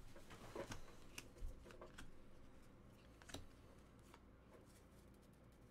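Near silence with a few faint, scattered clicks and rustles of trading cards being handled.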